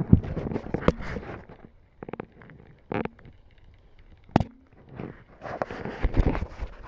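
Rustling and crunching over dry twigs, grass and stones, broken by irregular sharp clicks and knocks. The sharpest click comes about four and a half seconds in, and a denser burst of rustling follows about a second later.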